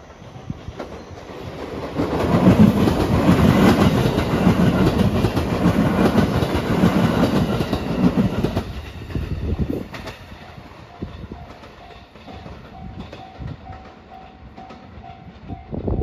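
Marine Liner electric train passing close by: a rising rumble, then wheels clattering over the rail joints in a steady rhythm for about seven seconds before it fades away. In the second half a level-crossing bell rings faintly and steadily.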